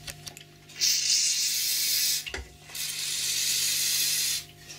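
Aerosol spray can spraying onto a lathe's cross-slide leadscrew in two long hissing bursts, with a short knock between them.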